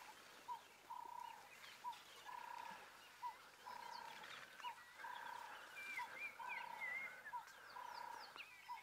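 Faint repeated animal call, a short rising note followed by a longer steady note, about once a second, with a few faint bird chirps higher up from about five seconds in.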